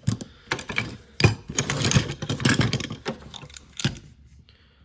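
Hand tools, screwdrivers among them, clattering and knocking against each other as they are rummaged through and picked out of a toolbox drawer; a dense run of irregular knocks that settles near the end.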